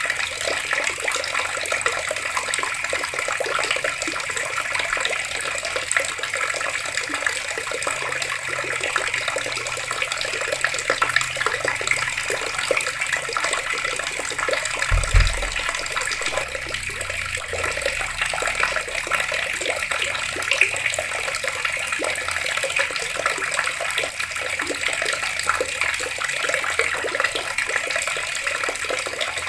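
Water taps running steadily, a continuous splashing rush of water. There is one brief low thump about halfway through.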